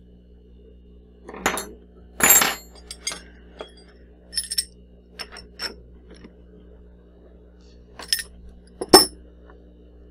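Metal-on-metal clinks and knocks of a machined aluminium plate and the mill vise being handled as the workpiece is unclamped and taken out, a dozen or so separate sharp strikes with a little ringing, the loudest near the end. A steady low hum runs underneath.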